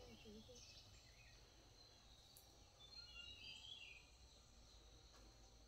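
Near silence: faint outdoor ambience with a low steady hum and a few short, faint high chirps about three seconds in.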